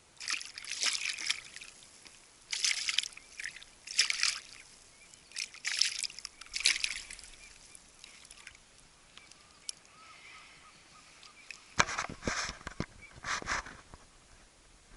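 Water splashing and sloshing in short, irregular bursts close to a small boat, with a louder run of splashes near the end.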